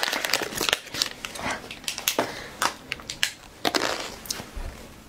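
Crinkly wrapper of an individually packaged jujube sponge cake crackling and rustling as it is torn open and peeled back off the cake. The crackles come thick at first, with a few sharper, louder ones in the middle.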